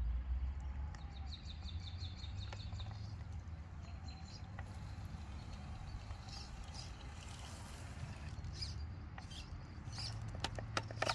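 Traxxas TRX-4 Sport RC crawler driving across grass, faint under a steady low rumble, then a quick run of clicks and knocks near the end as its tyres reach the stone slabs.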